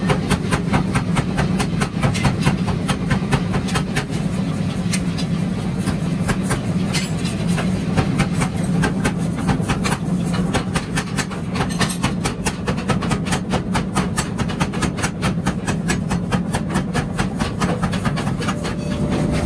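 Hand hammer striking a red-hot steel pickaxe head on an anvil in a quick, even run of blows, several a second, over a steady low hum of workshop machinery.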